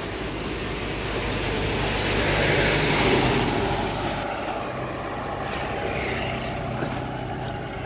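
A motor vehicle passing on the road, its noise rising to a peak about three seconds in and then fading, over the scrape of a shovel working through granular fertilizer on a plastic tarp.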